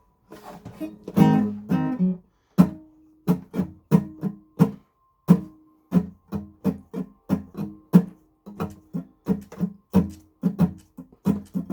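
Guitar being plucked, single notes and light strums at a steady pace of two to three notes a second, played as the lead-in to a sung song.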